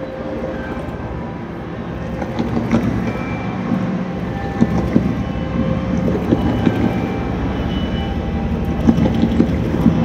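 Amplified sewing machine, run through electronics as an instrument, making a steady mechanical drone with sharp clicks that grow denser and a little louder from about two seconds in.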